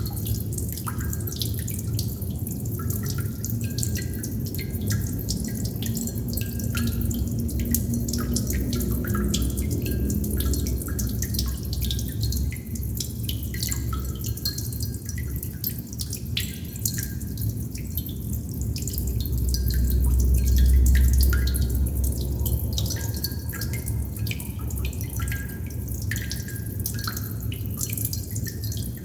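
Water droplets dripping: many small, irregular drips each second over a steady low rumble that swells for a few seconds about twenty seconds in.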